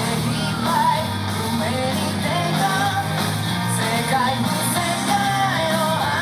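Japanese rock song with male lead vocals, electric guitars, bass and drums, played loud over the stage's sound system.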